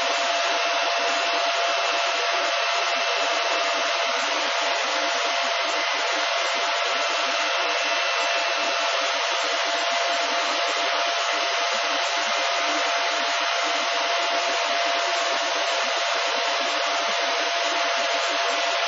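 Silverfish 28 MH/s Litecoin ASIC miner running under full mining load. Its cooling fans make a loud, steady rushing noise with a constant mid-pitched hum.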